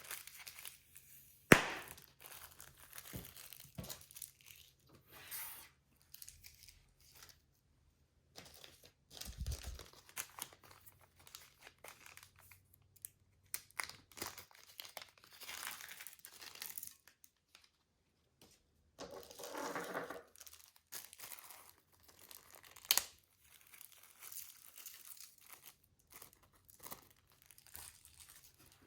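Plastic piping bags crinkling and rustling as they are handled, in irregular bursts with short pauses, with a sharp click about a second and a half in.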